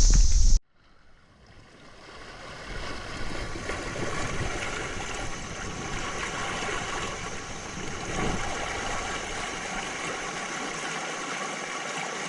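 Steady rush of flowing creek water. It cuts out abruptly about half a second in, then fades back in over the next few seconds and holds steady.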